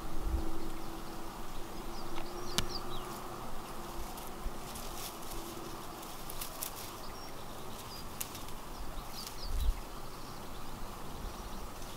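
Outdoor ambience: an insect buzzing steadily for the first few seconds, with a few faint bird chirps and scattered light clicks of rustling. There are low bumps on the microphone near the start and again near the end.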